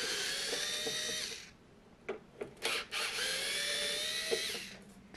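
Cordless electric screwdriver unscrewing screws from a plastic speaker housing: its motor whine stops about a second and a half in, then after a few light clicks it runs again for about two seconds, the pitch rising as it starts and falling as it stops.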